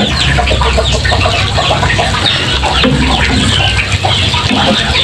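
Chickens clucking with many quick, high, falling peeps like chicks, repeating throughout over a low steady hum.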